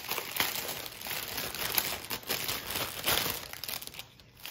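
Plastic crinkling and rustling as it is handled, going quiet shortly before the end.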